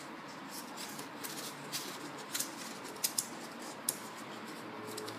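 Handling noise of a hard plastic hip pad being pushed into the slot of a stretchy compression girdle: fabric rustling and plastic scraping, with several sharp clicks from about two seconds in.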